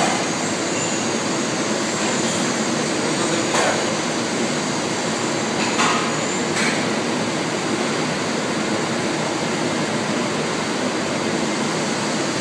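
Steady hum and rush of factory machinery and ventilation, with a few short knocks scattered through it.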